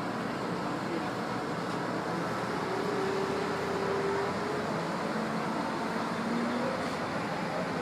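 Steady street traffic noise: vehicles running, with a few faint short tones mixed in.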